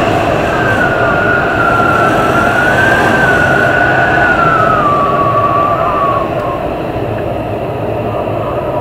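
Heavy storm wind blowing hard, with a high wavering whistle that drifts up and down in pitch and fades out after about six seconds.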